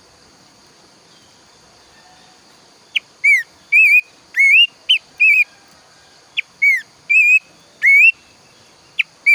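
Pelanduk semak, a babbler, singing loud clear whistles. The song begins about three seconds in and is a repeated phrase: a short sharp note, then a falling whistle, wavering notes and a rising whistle. A steady faint high hiss runs underneath.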